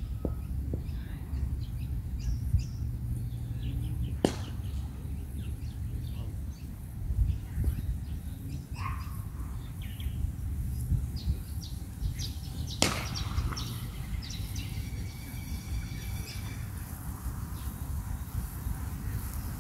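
Open-air ambience: a low, uneven rumble with scattered bird chirps and a short whistled bird call, broken by two sharp clicks, about four and thirteen seconds in.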